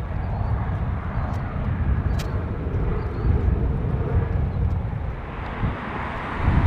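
Airbus A321neo jet engines (CFM LEAP-1A) running as the airliner rolls out along the runway after landing: a steady low rumble with a hiss above it.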